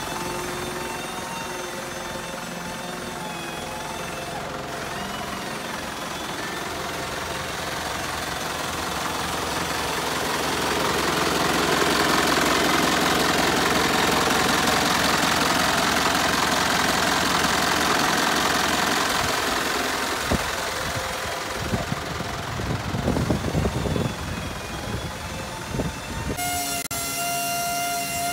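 Mitsubishi Canter's 4M50 turbodiesel engine running steadily at idle with a steady whine. It gets louder through the middle as the engine bay comes close, a few irregular knocks come in later, and the tone shifts abruptly near the end.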